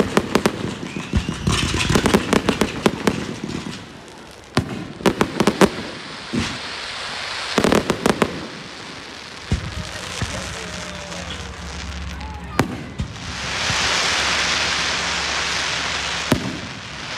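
Fireworks display: aerial shells bursting with sharp bangs and crackling in rapid clusters, then single bangs a few seconds apart, and a steady hiss for the last few seconds.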